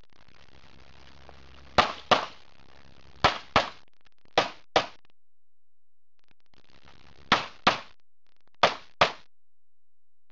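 Pistol fired in five quick pairs of shots (double taps), ten shots in all, with a pause of about two and a half seconds between the third and fourth pairs.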